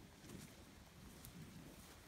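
Near silence: faint outdoor ambience with a few soft, low, dull sounds.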